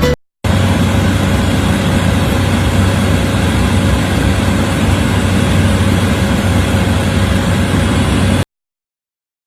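A steady engine running, with a constant low hum under a noisy rumble. It starts just after a brief gap and cuts off suddenly about a second before the end.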